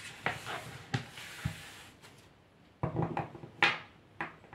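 A deck of oracle cards shuffled by hand: a sliding hiss of cards against each other for the first couple of seconds, then a few light taps and clicks as the deck is squared and handled.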